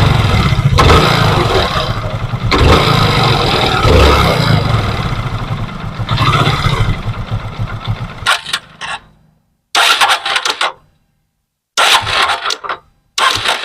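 Hero Super Splendor's single-cylinder four-stroke engine revved with the throttle, with a 'ghat ghat' knocking from the clutch side; the mechanic suspects a broken clutch housing spring or a loose clutch nut. About eight seconds in the engine sound falls away, leaving a few short bursts of sound between silent gaps.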